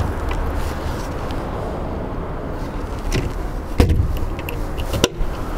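A boat's anchor-locker deck hatch lid being handled: a few light clicks and knocks, then the lid shuts with a thump just under four seconds in, followed by a sharp click about a second later, over steady background noise.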